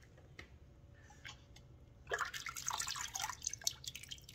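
Marinade dripping and splashing back into a stainless steel pot as a handful of marinated beef strips is lifted out of it. Scattered drips at first, then a louder run of splashing about two seconds in that lasts about a second.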